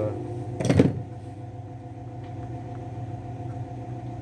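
One sharp knock just under a second in as a tool is handled on the chainsaw, over a steady low hum.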